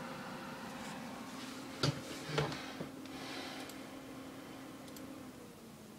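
Dell desktop computer's cooling fans winding down from forced high speed: a steady whir with several held tones that fades and drops away near the end as the fans return to normal speed. A few knocks about two seconds in.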